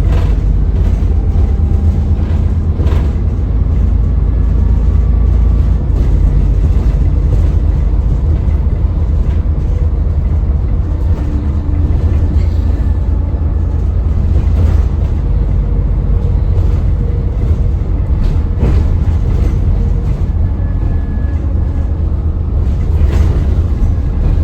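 Alexander Dennis Enviro400 double-decker bus running on the move, a steady heavy engine rumble with a faint high turbo whine coming and going above it.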